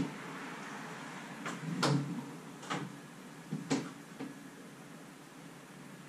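Hand rigging of a rope-and-pulley hoist: about six sharp clacks and knocks of rope and hardware being handled, the loudest about two seconds in, over a low steady hum.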